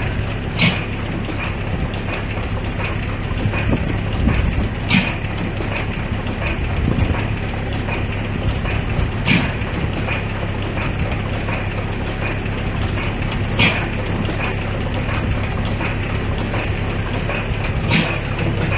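12 hp Hercules stationary engine idling on its hit-and-miss governor: a sharp firing bang about every four seconds, five in all, with light rapid clicking and a low hum as the flywheels coast between the firings.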